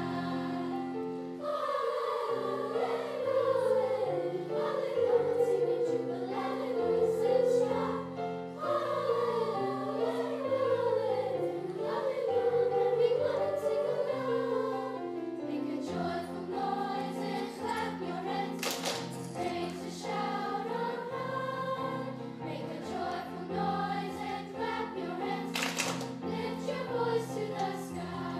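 Sixth-grade children's choir singing with piano accompaniment.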